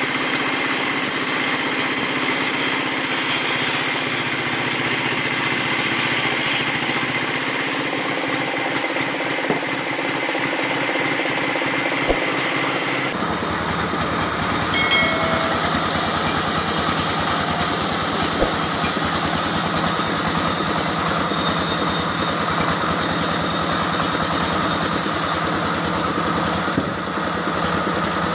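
Engine-driven sawmill running steadily, its motor and saw making a constant mechanical drone. About 13 seconds in the sound shifts abruptly to a heavier, deeper rumble.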